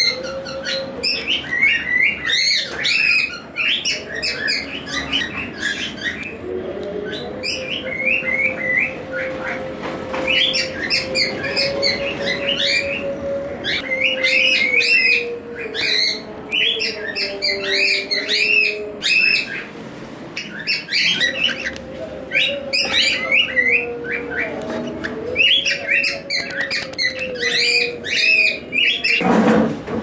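Flock of caged cockatiels chirping and chattering, many short calls overlapping in bursts, over a low steady hum that wavers slightly in pitch.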